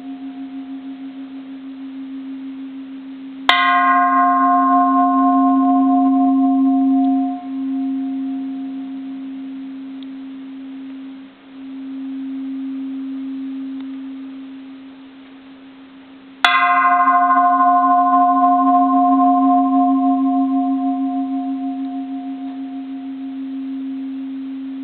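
Bronze Japanese Buddhist temple bell struck twice with a striker, about thirteen seconds apart. Each strike gives a sharp clang, then a long ringing hum with a pulsing low tone and higher overtones that slowly fade. The ringing from an earlier strike carries on at the start.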